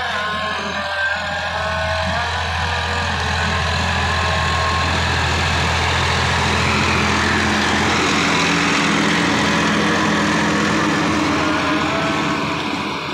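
Sonalika DI-50 RX tractor's diesel engine running under load as it drives a rotary tiller through dry field soil, with the tiller's churning noise over a steady low engine hum. It grows louder around the middle as the tractor passes close by.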